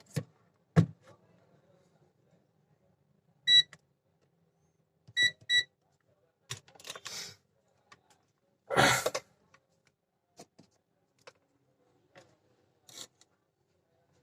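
Multimeter beeper giving one short high beep, then two quick beeps, as the probes touch points on the phone's circuit board, with scattered handling clicks and a louder rustle about nine seconds in.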